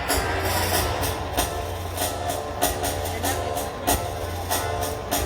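Live street music: a wind melody over drums, with a sharp drum beat every half second or so.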